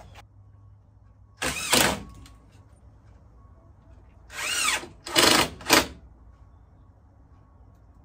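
Cordless drill run in several short trigger bursts, the motor speeding up and slowing with each: one burst about a second and a half in, then three in quick succession around the middle.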